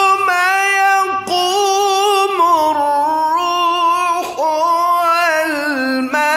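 A man's high, full voice in melodic Quran recitation (tilawat), drawing out long ornamented notes that waver and glide between pitches. Three drawn-out phrases, each broken off by a quick breath.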